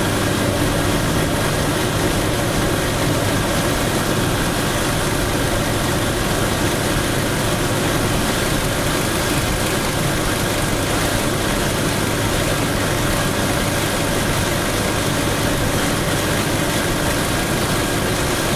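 Steady road noise inside a car cruising on a freeway: engine hum and tyre rumble, unchanging throughout.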